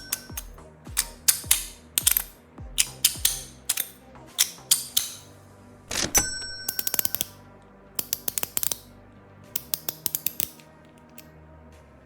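EDC fidget toys being worked by hand, giving quick clusters of sharp clicks and snaps about once a second. One snap about six seconds in leaves a short ring. Soft background music plays under them.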